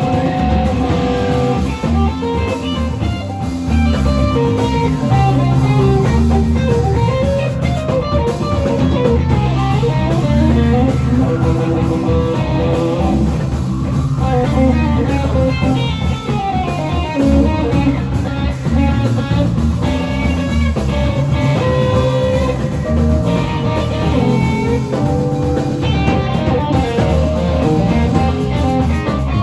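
Live instrumental band: a hollow-body electric guitar plays a melodic line over electric bass guitar, with a strong, steady bass line underneath.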